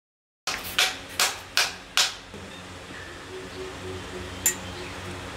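Five sharp metal-on-metal hammer blows in quick succession, about two or three a second, each with a short ring: a steel steering-head bearing race being tapped home into the motorcycle frame's head tube. One more sharp click follows near the end.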